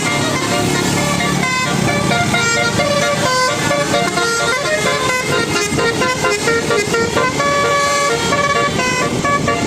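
Telolet bus horn: a set of tuned air horns playing a quick tune, its notes held and changing pitch several times a second.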